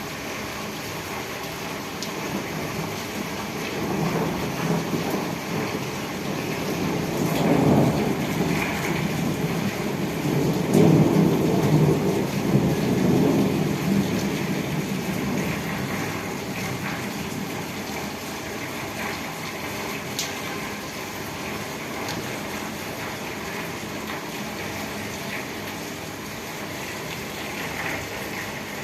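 Steady rain with a long roll of thunder: a deep rumble builds about four seconds in, swells twice, and dies away over the next several seconds.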